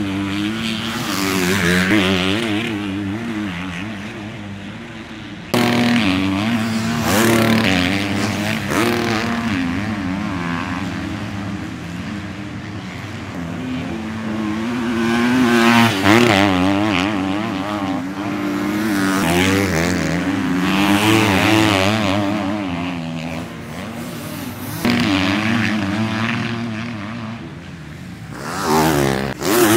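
250cc four-stroke motocross bikes running hard on a sand track, engines revving up and falling back through corners and jumps, one or two bikes at a time. The sound changes abruptly at cuts about five, twenty-five and twenty-nine seconds in.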